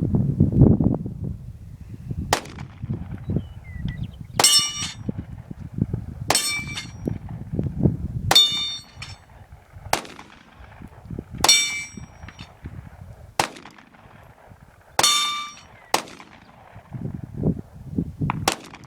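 About ten 9mm pistol shots from a Glock 19, fired at a slow, even pace of roughly one every two seconds. About half are followed by the metallic ring of a steel dueling-tree paddle being hit, and the others have no ring.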